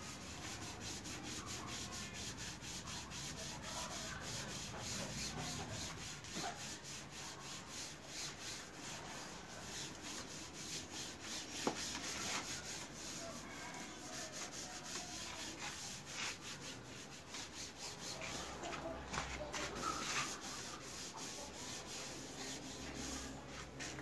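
Hand rubbing strokes on the painted steel legshield of a Vespa PTS 100: a fairly faint, regular scratchy rhythm of about two or three strokes a second, typical of sanding or polishing the paintwork by hand. One sharp click stands out about halfway through.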